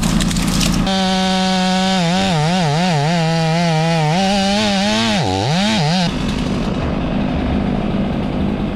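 Gas chainsaw running at high revs while cutting through a tree trunk. Its engine pitch wavers up and down as the chain loads in the wood and dips sharply about five seconds in, then the sound turns rougher and noisier.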